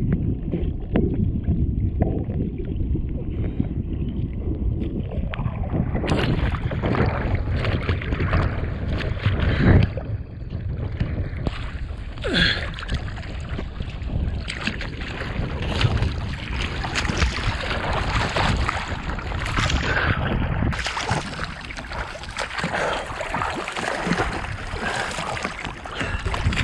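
Choppy lake water sloshing and splashing around a camera held at the surface, with wind buffeting the microphone. The sound is dull for about the first six seconds, then turns brighter, with irregular splashes throughout.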